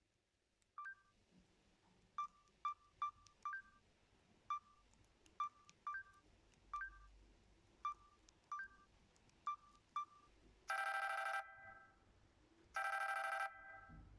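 Samsung GT-S5610K mobile phone giving a string of short, irregularly spaced two-note beeps, like key or menu tones, then near the end two long electronic ring tones about two seconds apart.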